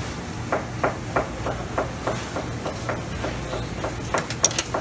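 Even, rhythmic chopping, about three strokes a second, like a knife on a cutting board. Near the end come a few sharp metal clinks of serving tongs against a steel pan, over a steady low hum.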